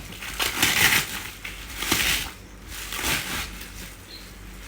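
Packaging being handled and torn open while unboxing a sewing machine: crinkling and rustling in three bursts, about one, two and three seconds in.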